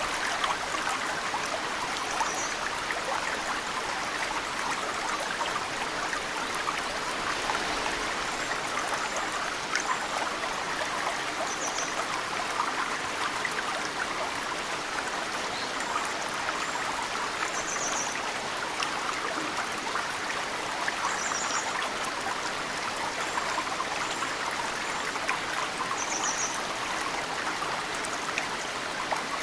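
Mountain stream flowing steadily, with snowmelt drops dripping into the water. Short, high bird chirps come every few seconds.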